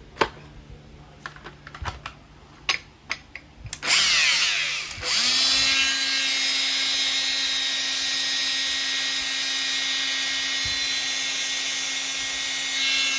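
Makita 18V cordless angle grinder running free with no disc fitted. After a few handling clicks it spins up about four seconds in, dips briefly, then runs steadily at full speed with a high whine.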